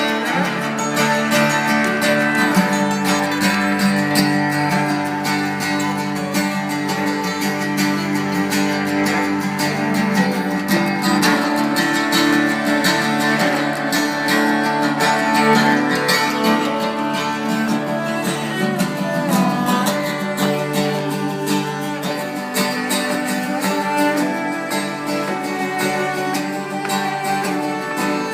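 Acoustic instrumental music led by a plucked guitar, playing on steadily without a break.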